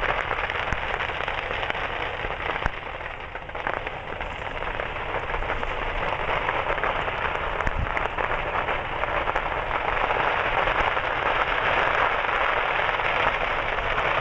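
Fireworks stand burning: a dense, steady crackling hiss from the fire and its burning fireworks stock, with scattered sharp pops, growing a little louder over the last few seconds.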